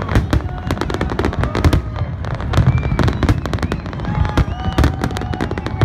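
Fireworks display: many aerial shells bursting in rapid, overlapping bangs and crackles, several a second, over a continuous low rumble. A few short gliding tones sound above them.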